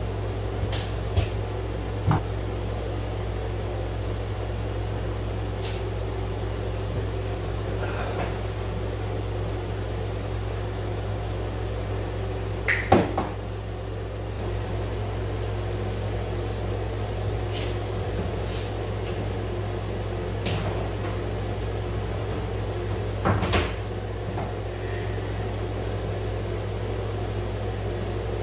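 Steady hum of a window air conditioner running, with a few sharp knocks and clatters from cable being handled at the wall studs and outlet box, the loudest about a third of the way in.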